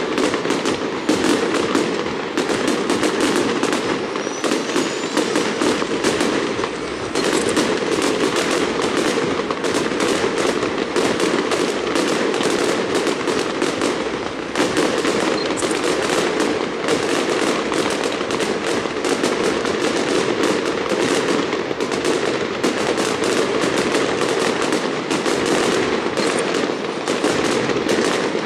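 Fireworks going off in a dense, unbroken crackle of rapid small bangs.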